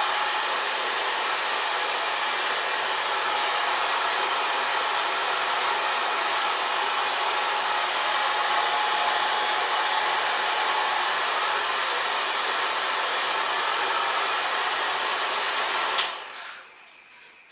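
Hand-held hair dryer blowing at a steady speed, a loud even rush of air with a faint whine from the motor. It is switched off about sixteen seconds in and fades out over about a second.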